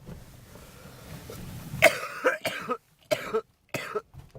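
A person hacking: a string of about five harsh coughs, the first and loudest about two seconds in, with short pauses between them.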